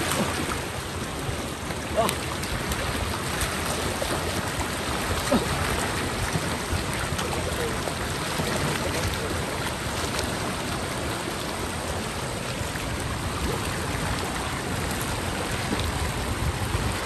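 Steady rush of flowing floodwater, with a few short faint clicks.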